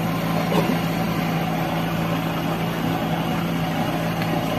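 Small boat's engine running steadily under way, a constant drone.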